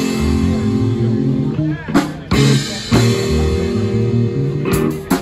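Live rock band playing: electric guitar holding chords over a moving electric bass line, with drum kit hits about two seconds in and again near the end.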